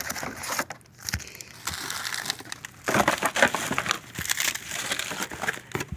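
Foil trading-card pack wrappers and cardboard being handled: crinkling and crackling with scattered small clicks, louder in the second half.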